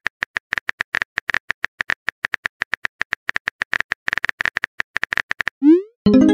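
Simulated phone-keyboard key-tap clicks from a texting-story animation, rapid and even at about eight taps a second. Near the end they stop, and a quick rising swoosh and a short pitched tone follow as the message is sent.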